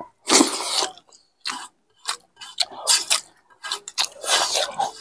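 People eating rice and egg curry by hand from steel plates: close-up chewing, and fingers scraping through rice on the plates, in short irregular bursts.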